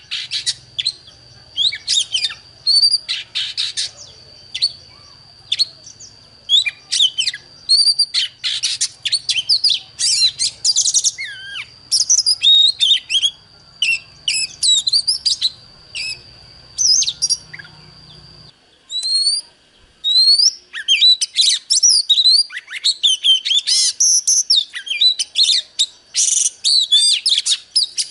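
Oriental magpie-robin singing a fast, varied run of whistled, warbled and scratchy phrases. A steady thin high tone runs behind it and cuts off about two-thirds of the way through, after a brief break in the song.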